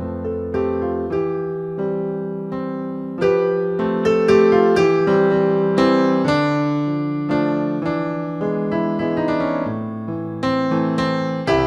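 Solo piano or electric piano music: struck chords and melody notes, each ringing and fading, over held bass notes, growing louder about three seconds in.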